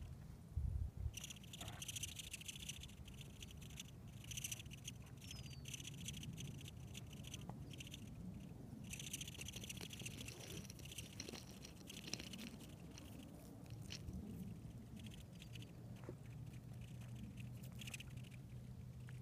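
Female velvet ant (Mutillidae) squeaking: stridulating in long runs of rapid, high-pitched chirring pulses, one run in the first few seconds and a longer one through the middle and latter part. A low thump about a second in is the loudest sound.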